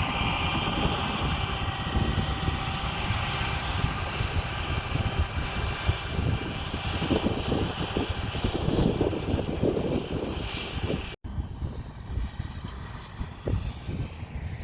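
Heavy harvest machinery running steadily: a diesel rumble with a steady high whine on top. About eleven seconds in the sound cuts abruptly to a quieter stretch of machine noise with wind on the microphone.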